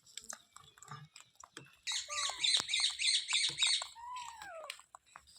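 Pet green parrot giving a rapid run of shrill squawks for about two seconds, then one falling whistle-like call, with scattered small clicks around them.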